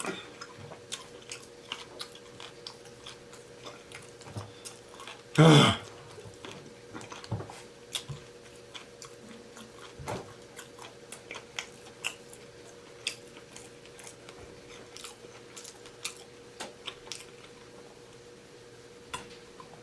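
A person chewing and crunching food close to the microphone, with many short wet mouth clicks. There is a brief vocal groan, falling in pitch, about five and a half seconds in.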